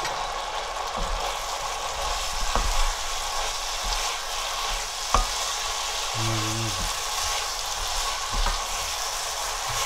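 Gochujang sauce sizzling in hot oil in a frying pan as shredded dried pollack is stirred through it with a wooden spatula. A steady sizzle runs throughout, with a few knocks of the spatula against the pan.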